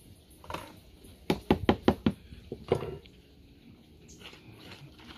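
A quick run of five sharp knocks, then one more a moment later, followed by faint rustling as hands work dry flour in a plastic bowl.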